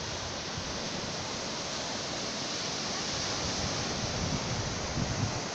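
Sea surf breaking and washing up over a flat sandy beach: a steady hiss of foaming water, with a few low rumbles of wind on the microphone near the end.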